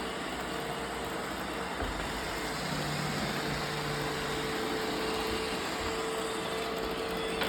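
Roomba robot vacuum running: a steady whir with a constant hum.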